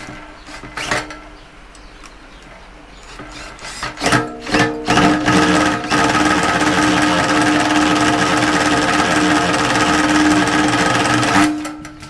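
Cordless drill on its low speed turning the crank of an Enerpat copper wire stripper, pulling thick dual-core scrap copper cable through the cutting blades. A couple of knocks come first, then the drill starts in a few short bursts about four seconds in, runs at a steady pitch for about five seconds, and stops near the end.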